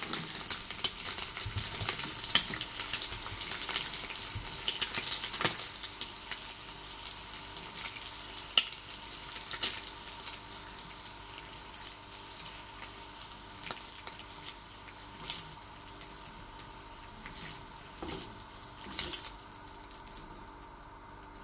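Thin-cut streaky bacon sizzling and crackling in a non-stick frying pan, the sizzle fading steadily as the rashers are lifted out with tongs, leaving scattered pops and clicks near the end.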